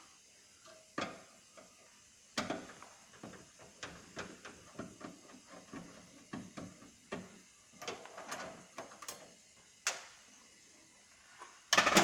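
A screwdriver backing screws out of a microwave's sheet-metal vent grille: scattered small clicks and scrapes of the tip and the screws against the metal, with a louder knock and rattle near the end.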